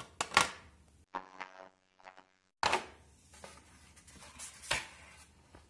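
Sharp clicks and rustling of a clear plastic packaging tray and SSDs being handled. Between about one and two and a half seconds in, the sound drops to dead silence holding a faint steady buzz.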